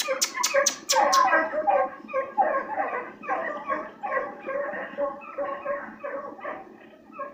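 A pack of scent hounds giving tongue as they run a hare's trail: many overlapping yelping cries that gradually grow fainter toward the end. A quick run of about six sharp clicks in the first second.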